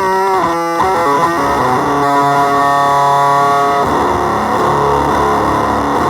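Electric guitar played through the New Green Tree effects pedal: a run of quick notes, then a chord held for about two seconds that breaks into a dense, noisy wash of sound near the end.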